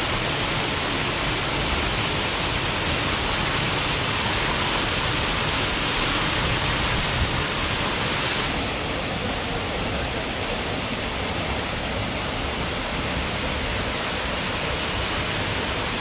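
Waterfall pouring off a rock ledge into a plunge pool: a steady rushing splash. Its hiss turns a little duller about halfway through.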